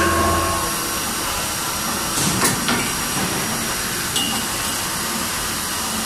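Steady hissing noise of a CNC vertical machining centre. A low hum and a steady tone cut off within the first second, and a short knock comes about two and a half seconds in.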